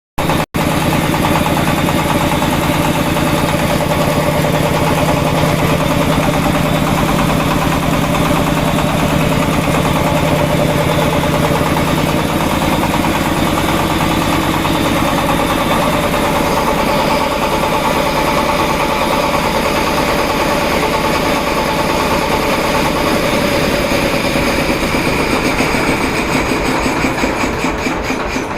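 Fumitsu 24 HP engine running steadily, driving a homemade high-pressure air compressor, with a fast even beat. The sound eases a little near the end.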